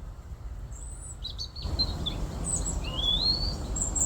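Small songbirds at feeders calling with short high chirps, including one clear rising call about three seconds in, over a low rumble of noise that gets louder about a second and a half in.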